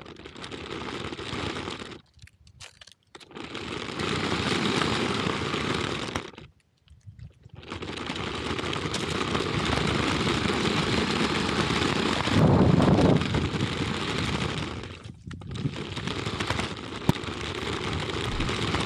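Remote-control toy police car rolling over coarse asphalt, its small wheels and motor making a steady rattling hiss that cuts out twice when it stops, about two seconds in and again around six to seven seconds in. A louder low rumble swells briefly about two-thirds of the way through.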